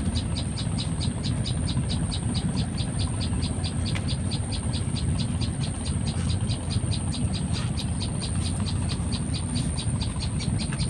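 Insect chirping in a fast, even rhythm, about four or five high pulses a second, with a thin steady high tone above it and a constant low rumble underneath.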